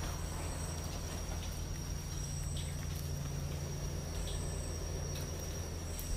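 Night insects: a steady high-pitched trill, with a shorter, higher buzz repeating about every two seconds, over a low steady hum.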